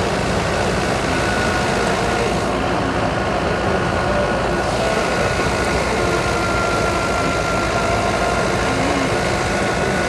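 Tractor-driven wheat thresher running steadily: a constant engine and machine din with a thin steady whine above it.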